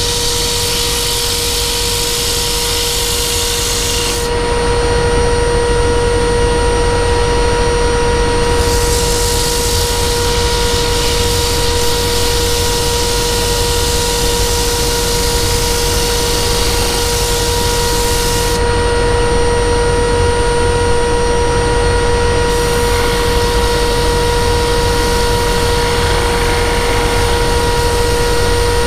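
Workshop power tool motor running steadily with a constant whine. A high hissing noise over it drops away twice, for a few seconds each time, and comes back, typical of a tool working wood.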